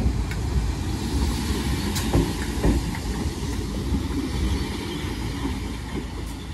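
Merseyrail Class 507/508 electric multiple units being towed past as dead stock, their wheels rumbling over the rails with a few sharp clacks.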